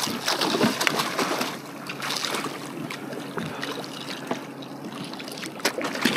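Hooked yellowfin tuna thrashing at the surface beside a kayak: water splashing and sloshing unevenly, with several sharp splashes, busiest in the first two seconds or so.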